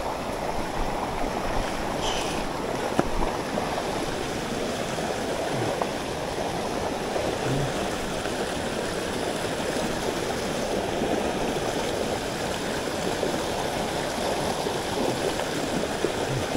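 Mountain headwater stream rushing steadily over rocks, running high with rainwater. There is a light click about three seconds in.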